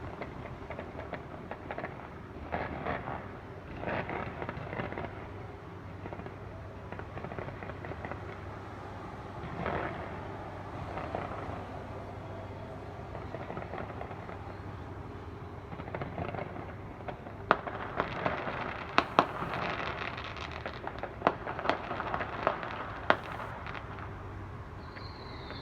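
Fireworks display: crackling bursts of noise through the first half, then a quick run of sharp, loud bangs and cracks in the last third.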